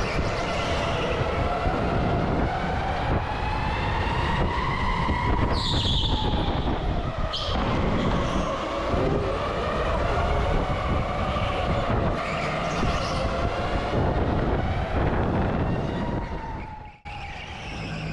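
Electric go-kart motor whining, its pitch rising and falling with speed, over road and wind rumble. A brief high squeal sounds about six seconds in, and the sound dips sharply for a moment near the end.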